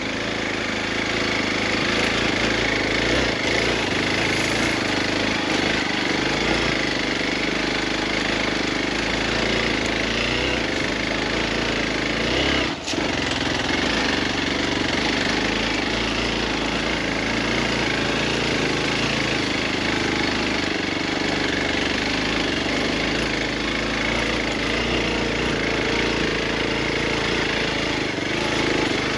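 Motorcycle engine running steadily, with a brief break and click about 13 seconds in.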